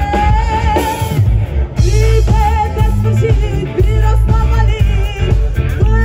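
Live band playing loudly, with a woman singing lead over electric guitars and drums and a heavy low end.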